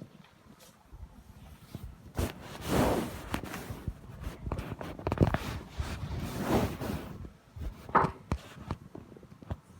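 Rustling and handling noise: scattered clicks and two longer swishes. About eight seconds in comes a short, sharp, high squeak.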